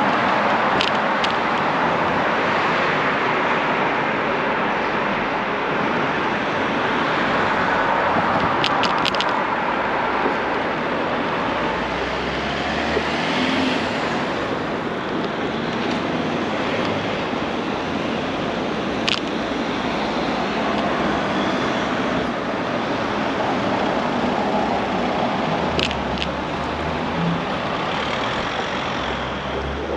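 Steady street traffic noise, cars driving past on a city street, with a few short sharp clicks near the start and again about 9, 19 and 26 seconds in.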